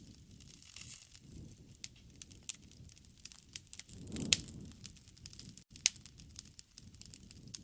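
Wood fire crackling, with frequent sharp pops and snaps over a low rush of flame. The fire swells briefly about four seconds in, with one louder pop.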